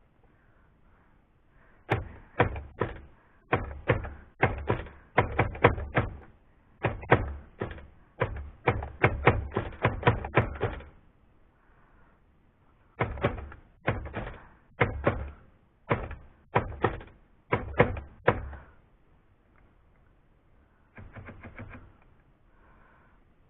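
Remington Noiseless No. 6 typewriter being typed on in two quick runs of keystrokes with a pause between, then a short, quieter flurry near the end. It is a test after loosening the draw band; the carriage still makes a couple of jumps, a sign that the escapement skips.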